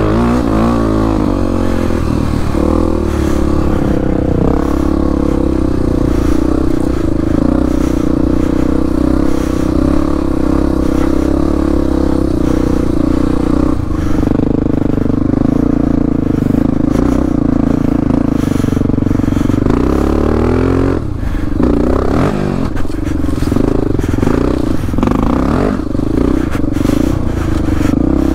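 Motorcycle engine running under load, its pitch wavering with the throttle, with clatter and scraping over it. The revs drop about twenty seconds in and pick up again, and short knocks come through in the second half.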